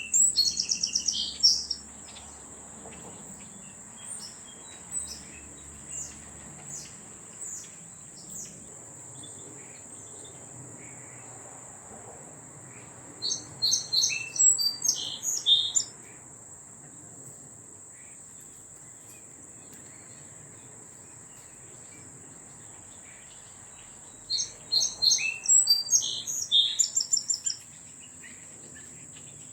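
A small songbird sings three quick phrases of rapid high notes, at the start, in the middle and near the end, with a few single chirps between. Under it runs a steady, high-pitched insect drone.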